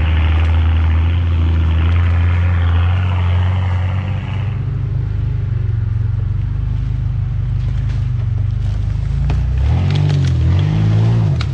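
Off-road 4x4 engines running under load while climbing. The sound changes about four seconds in, and near the end an engine revs up and down several times.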